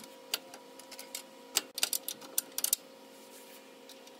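Irregular sharp metallic clicks and taps of a bolt and hand tools being handled while fitting the lower shock-mount bolt, bunched in the first three seconds, over a faint steady hum.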